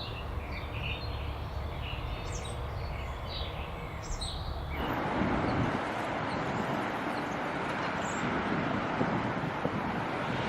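Outdoor ambience: a low rumble with scattered small bird chirps. About five seconds in it cuts suddenly to a louder, steady rushing noise, like traffic or a passing train.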